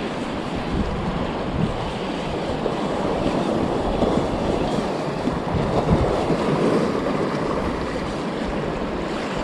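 Sea waves washing over shoreline rocks, a steady surf noise, with wind buffeting the microphone.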